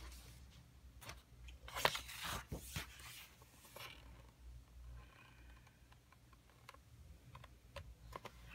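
Pages of a thick-papered coloring book being turned: a few quick paper rustles and flaps over the first few seconds, loudest about two seconds in, then faint light handling of the paper.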